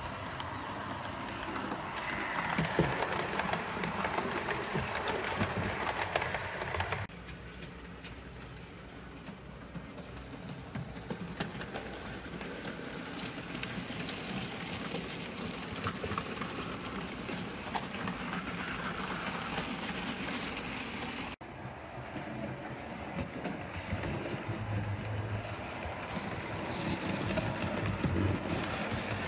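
Model trains running on a layout: the whirr of the locomotives and wheels rolling on the track, with many small clicks as the wheels cross rail joints and the rolling stock passes. The sound changes abruptly twice as the shot changes.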